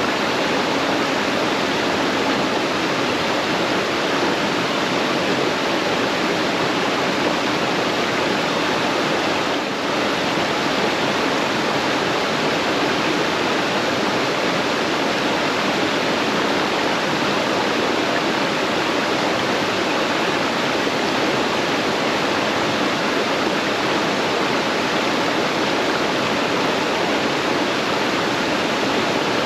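Creek water flowing close by: a steady, even rush of moving water.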